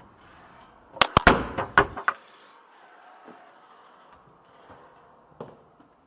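A quick cluster of five or six sharp wooden knocks and clatter about a second in, then a few faint knocks: hands, feet and the camera pole striking the steep wooden stair steps during a climb.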